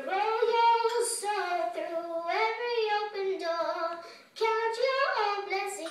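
A young girl singing unaccompanied in a high voice, holding long, gliding notes, with a brief pause for breath a little past halfway.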